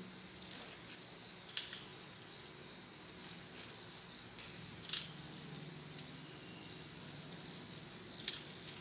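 Battery-powered Zoids Wild Liger toy walking on its small electric motor and gearbox: a low steady whir, stronger from about halfway, with a few sharp clicks from its mechanism and feet on the tile floor.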